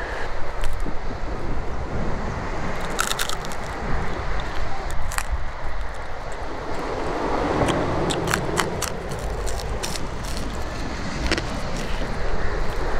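Crab shell being bitten and cracked while eating: crunching with a few sharp cracks, about 3, 5, 8 to 9 and 11 seconds in, over a steady outdoor noise.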